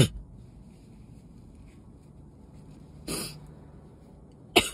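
A woman sneezing again and again in a sneezing fit brought on by dust on top of a cold: sharp, loud sneezes right at the start and near the end, and a shorter burst about three seconds in.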